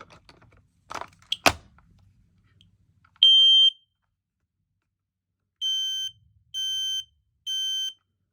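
Smoke alarm test: a couple of clicks as the unit is handled, then the alarm's piezo horn sounds one loud, high-pitched beep and, after a short pause, three more beeps about a second apart.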